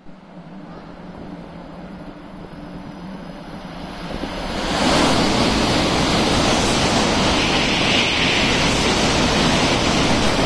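N700A Shinkansen passing through the station at high speed, a rush of air and wheels on rail that grows as it approaches. It turns loud about five seconds in, holds while the train goes by, and begins to fade near the end.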